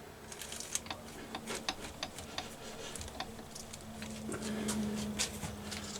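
Small thread-repair tap turned by hand in a tap handle, cutting the oversize thread for a Helicoil-style insert in a pulled stud hole: irregular sharp clicks and ticks as the tap bites and is worked back and forth, over a faint steady hum.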